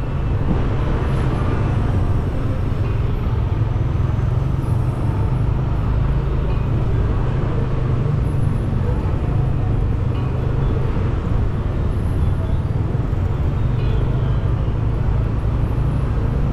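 Steady low rumble of a car driving slowly along a paved street in traffic.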